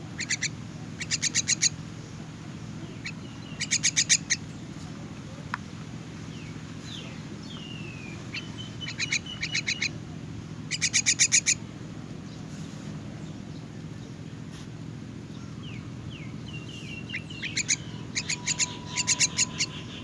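Myna chick's begging calls: about six short runs of rapid, harsh chirps, with a few thin sliding whistle notes between them. A steady low hum runs underneath.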